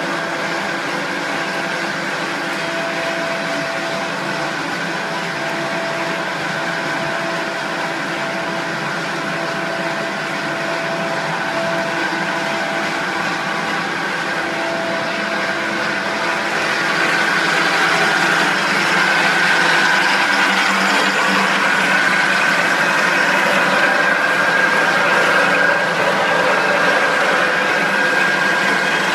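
Plastic extrusion machine running: a steady mechanical drone with a few held whining tones, growing louder about two-thirds of the way through.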